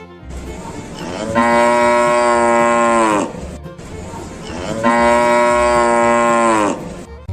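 A cow mooing twice: two long moos, each held steady and falling in pitch at the end.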